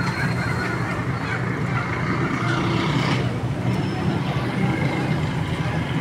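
Busy market and street din: a steady low rumble of traffic with a murmur of voices, and a couple of brief, faint high tones.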